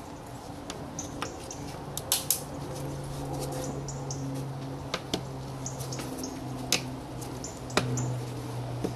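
Plastic rear light cluster and its bulb holder being handled: a few sharp clicks and small high squeaks, over a steady low hum.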